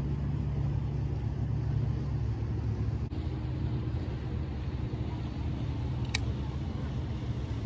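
A steady low rumble, with a pipe being lit by lighter. A single sharp lighter click comes about six seconds in.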